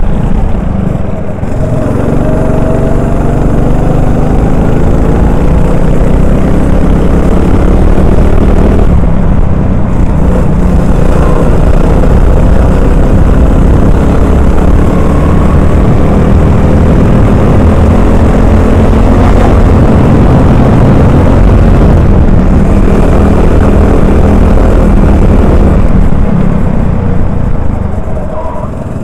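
Honda 390 single-cylinder four-stroke kart engine at racing revs, heard onboard. Its pitch drops several times as the driver lifts for corners and climbs again under acceleration on each exit.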